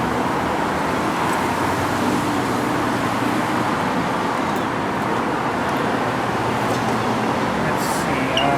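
Steady road traffic noise, an even rush of passing vehicles with no break.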